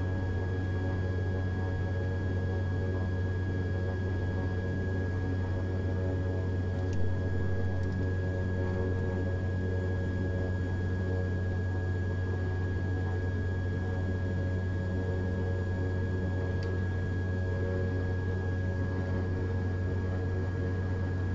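Beechcraft King Air's PT6A turboprop engines idling on the ground, heard inside the cockpit as a steady low drone with a constant high tone over it. A couple of faint clicks, about seven seconds in and near the end.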